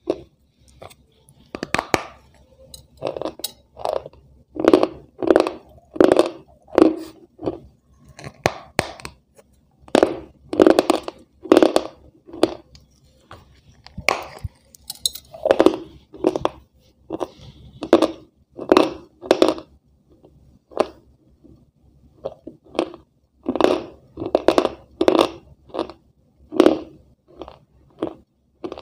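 Crunching as a person bites and chews a thin, brittle white sheet of food: loud crisp crunches every second or so, in runs with short pauses.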